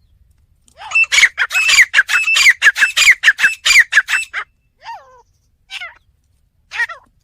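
Male teetar (grey francolin) calling: about a second in, a fast run of sharp, repeated notes, several a second, lasting some three seconds, then three single calls spaced about a second apart.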